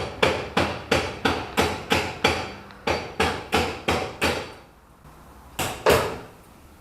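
Hammer blows on metal in a quick, steady run of about three a second, stopping about four and a half seconds in, then two more blows. The work is on rusted, seized parts underneath the car.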